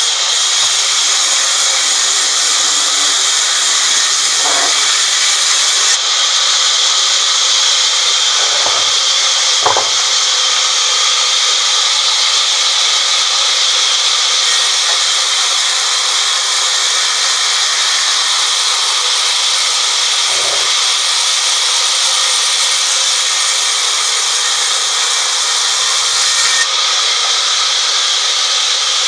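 Band sawmill cutting a teak log lengthwise into boards: the blade runs through the wood with a loud, steady, high hiss, with a few faint knocks along the way.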